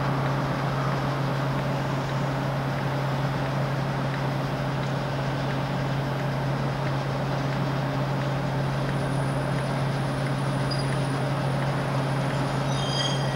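BR Class 58 diesel-electric locomotive running light at slow speed, its Ruston V12 diesel engine giving a steady low drone. A few brief high squeals come near the end.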